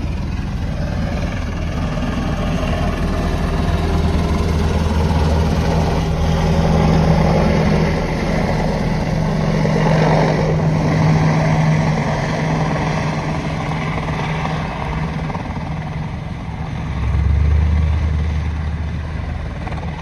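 Boeing AH-64 Apache attack helicopter hovering low to land, its main rotor and twin turboshaft engines running with a steady low drone that swells louder a few times.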